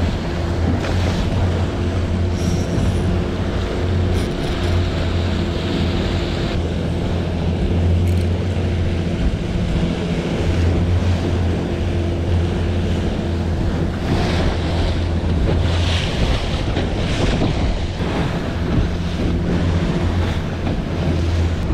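Outboard motor running steadily, pushing a small boat at trolling speed, with water rushing past the hull and wind buffeting the microphone.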